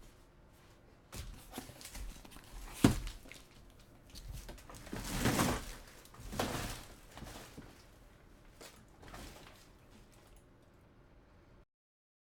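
Scattered handling noises: a sharp knock about three seconds in, then two short rustling swells a little later, with the sound cutting out to silence shortly before the end.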